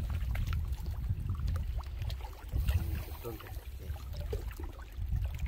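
River water splashing and lapping around men wading in it, with small irregular splashes and a steady low rumble of wind on the microphone.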